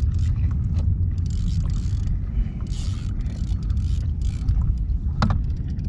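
Wind buffeting the microphone and sea water slapping against a kayak hull, with scattered faint clicks and a short higher-pitched squeak about five seconds in.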